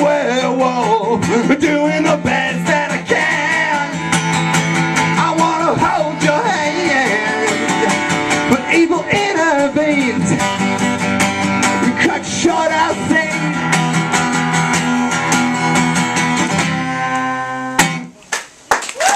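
Acoustic guitar strummed hard with singing over it, live. Near the end the song closes on a ringing held chord that cuts off suddenly.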